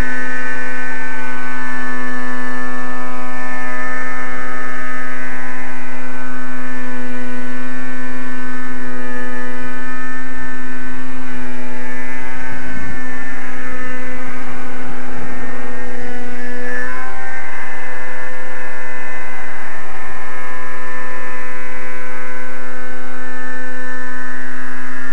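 Raptor 30/50-conversion nitro RC helicopter engine running loud at a steady pitch, held there by its governor. The pitch wavers and sags briefly about two-thirds of the way in, with a couple of knocks just before, then settles back to the same steady note.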